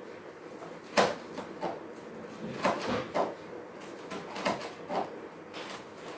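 Kitchen knife slicing a half cabbage into fine shreds on a wooden chopping board: irregular knocks of the blade striking the board, the loudest about a second in.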